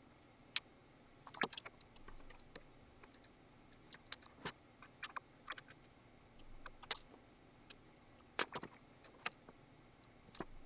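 Scattered small clicks and light metallic taps, irregular and short, from an Allen key and screws being handled while the case of a Digidesign 003 mixing console is unscrewed; a few louder knocks stand out about a second and a half, four and a half, seven and eight and a half seconds in.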